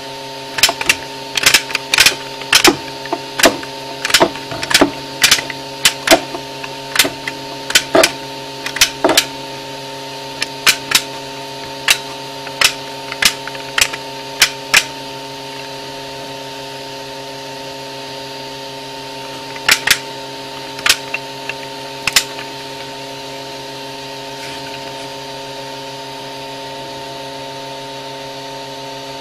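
3D-printed ABS ratchet wrench clicking as it is worked by hand: sharp clicks, one or two a second, through the first half, then a few more about two-thirds through. A steady hum of several tones runs underneath.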